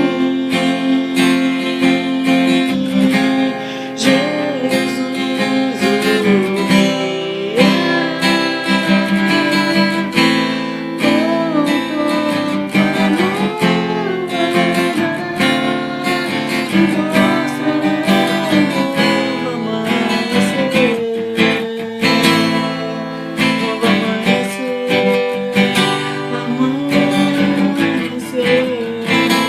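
Music: strummed acoustic guitar with a lead melody line that slides and bends in pitch over it, with no words sung.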